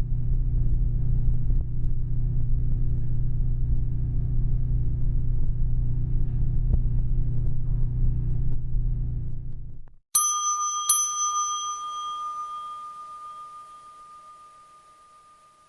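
Elevator running with a steady low rumble that cuts off abruptly about ten seconds in, followed by the elevator's arrival chime: two bell strikes under a second apart that ring out and slowly fade.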